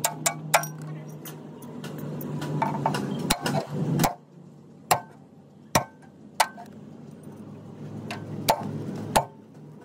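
Sharp metallic knocks and clinks at irregular intervals, about a dozen, over a steady low hum that drops away about four seconds in and comes back near the end.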